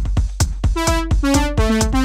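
Electronic music playing back from Korg Gadget 2. A steady drum-machine beat of about four hits a second runs over a constant deep bass. About three-quarters of a second in, a synth line of short notes joins, stepping mostly downward in pitch.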